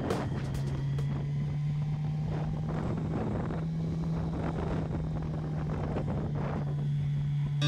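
Touring motorcycle engine running at a steady cruising speed, a constant low hum, with wind rushing over the microphone.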